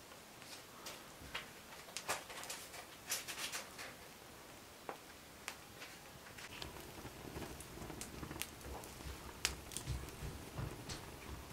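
Small wood fire of split sticks crackling in an open hearth, with irregular sharp pops and snaps. A few dull low thumps come in during the last few seconds.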